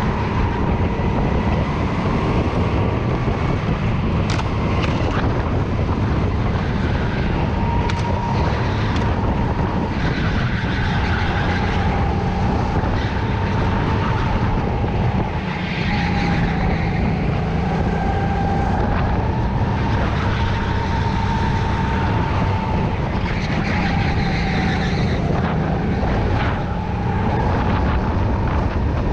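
Go-kart engine running under load as heard from the driver's seat. Its pitch rises and falls as the kart accelerates and lifts through the corners, with a couple of brief sharp clicks about four and eight seconds in.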